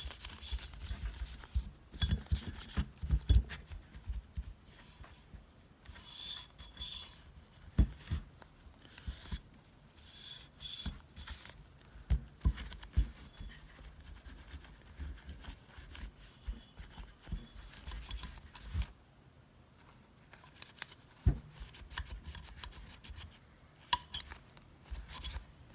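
Cotton tissue paper rubbing and wiping over the parts of a disassembled Glock pistol, with rustling and scraping and scattered sharp clicks and knocks as the plastic and metal parts are handled; the loudest knock comes about three seconds in.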